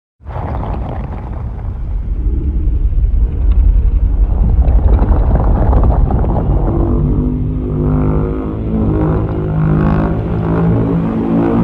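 Monster roar sound effect for a fictional kaiju: a deep rumble that starts suddenly and grows louder over the first few seconds, then becomes a pitched, growling roar held over the rumble for the rest of the clip.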